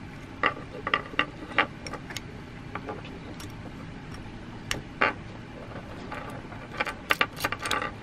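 Metal clicks and clinks from the parts of a stainless alarm padlock being handled and fitted together: a few in the first second and a half, one about five seconds in, and a quick run of clicks near the end.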